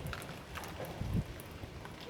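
Gusty wind, about 30 km/h, buffeting the microphone in irregular low thumps, over the wash of choppy sea waves, with scattered light ticks of rain.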